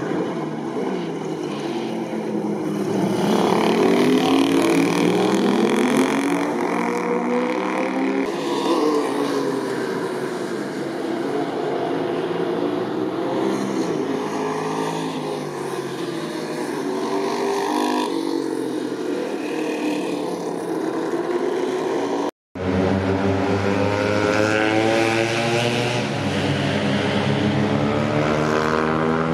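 Motorcycle engines on a racetrack, several bikes accelerating and passing, their pitch rising and falling. The sound drops out for a moment about two-thirds of the way through, then an engine carries on at a steadier pitch.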